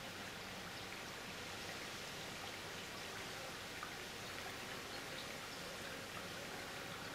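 Faint, steady trickling of water with scattered tiny patters.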